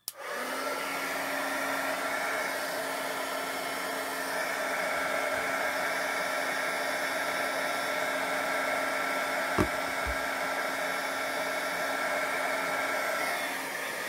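Craft heat gun for embossing, blowing steadily with a held hum as it melts embossing powder. It switches on at the start and cuts off near the end, with one short knock partway through.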